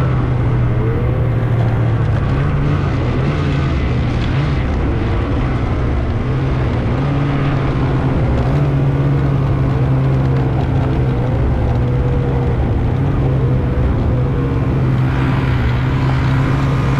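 Snowmobile engine running steadily, its pitch wavering up and down a little.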